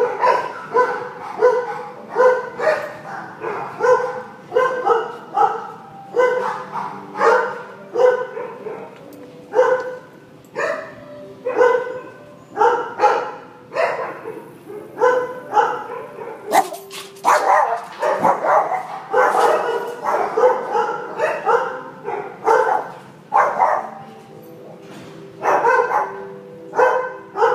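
Many kennelled shelter dogs barking over and over, several at once, in sharp, short barks that keep coming with hardly a break.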